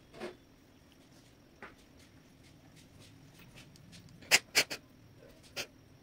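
A few sharp clicks and taps of hands handling an industrial sewing machine while threading it, with the machine not running. Two loud clicks come close together a little over four seconds in, and a smaller one near the end.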